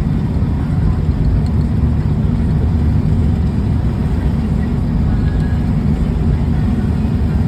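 Steady low rumble of a vehicle driving along a road, engine and road noise heard from inside the cab.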